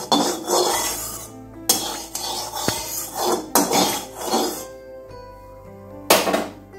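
Flat metal spatula scraping around the inside of a metal kadhai, swirling oil across the pan in several strokes.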